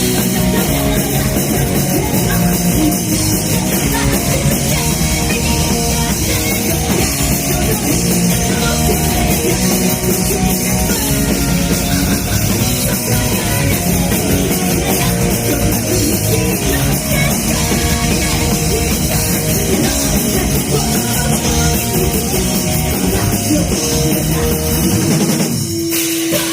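Live heavy metal band playing loud and dense: drum kit, distorted guitars and bass. Near the end the band thins out briefly, leaving one held note.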